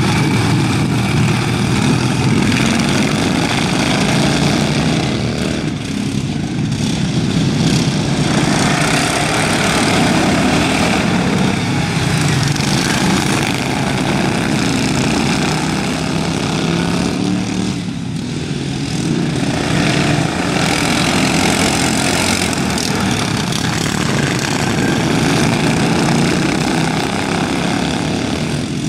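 A pack of racing lawn mowers with Briggs & Stratton engines running hard together, a loud buzzing drone that swells and fades as they pass, dipping briefly about six seconds in and again around eighteen seconds.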